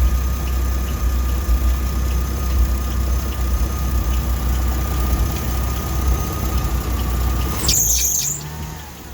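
Mini truck engine running with a steady high-pitched belt squeal, which the owner suspects comes from the power steering pump pulley. The sound changes abruptly near the end, with a short hissy burst.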